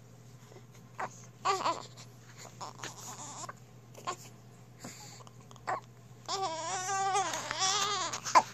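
One-week-old newborn fussing and crying: a few short whimpers, then a longer wavering cry of about two seconds near the end.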